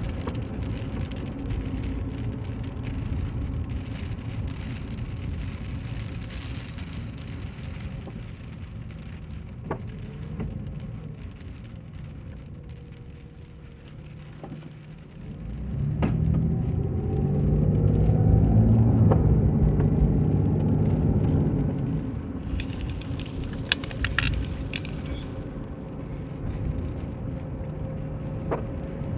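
Car on the move, heard from inside the cabin: a steady low road-and-engine rumble that swells louder for about six seconds past the middle, then settles back, with a few light clicks.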